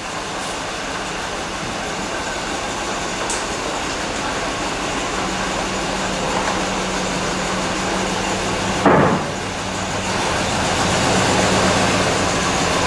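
Engine of a 1979 Chevy van, which the owner thinks is a 305 V8, running as the van creeps forward at low speed, getting gradually louder as it comes closer, with one short louder burst about nine seconds in. The engine is badly worn, running poorly with heavy blow-by.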